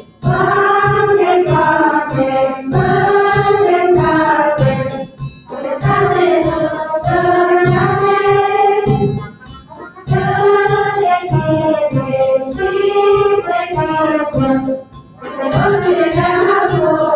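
A group of children singing a Romanian folk song together in unison, phrase by phrase with short breaths between phrases, over a steady low beat.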